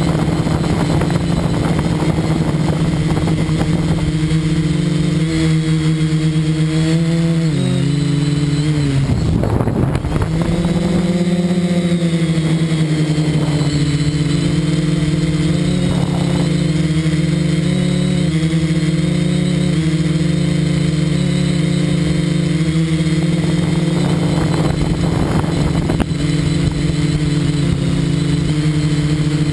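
Quadcopter's electric motors and propellers humming loudly, heard from a camera mounted on the frame. The pitch steps down and dips about eight to ten seconds in as the throttle changes, then settles again.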